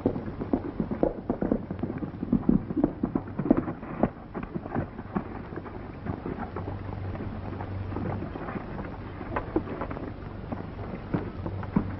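Horses' hooves on a dirt street: an irregular run of knocks, heaviest in the first few seconds and thinning out, over the steady hum and crackle of an old film soundtrack.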